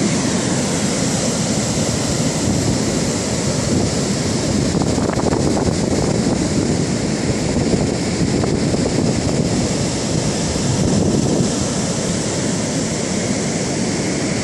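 Steady rushing noise of wind and surf, with wind buffeting the microphone.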